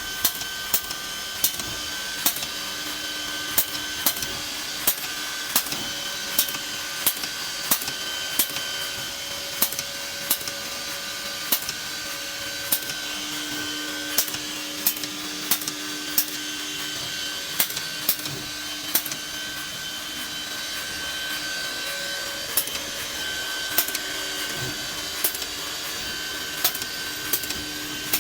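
ATC CNC router spindle running steadily with a whine whose pitch shifts now and then, over a series of sharp clicks roughly once or twice a second as the machine drills holes.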